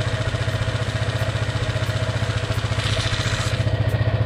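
Honda ADV 150's single-cylinder four-stroke engine idling with a fast, even pulse, on its first run with a newly fitted DCR camshaft. The mechanic puts a small noise from it down to valve clearances set a little on the loose side, or to the injector. A brief hiss about three seconds in.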